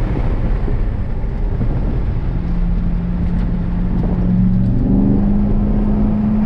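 A C7 Corvette Grand Sport's 6.2-litre LT1 V8 running on track, heard from inside the cabin. A low rumble at first, then from about two seconds in a held engine note that creeps up in pitch and steps a little higher near the end.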